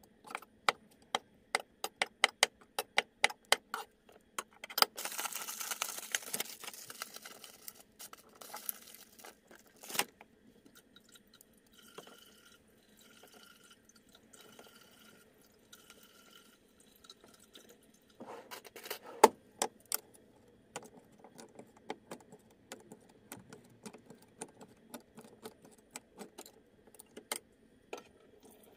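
Cleaver chopping mushrooms on a wooden cutting board, sharp knocks about three a second for the first few seconds. Then a short rush of running water and scattered clinks and knocks of dishes and utensils at the kitchen sink.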